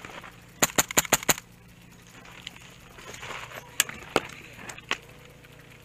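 HPA-powered airsoft rifle (Echo1 SR16 with a Wolverine SMP drop-in kit) firing a quick string of five shots about half a second in. A few more single sharp snaps follow later.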